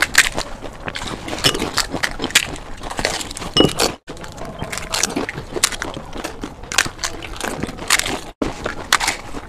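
Crisp fried panipuri (fuchka) shells cracking as they are poked open with fingers and crunched while eaten: a rapid, irregular run of sharp cracks and crunches.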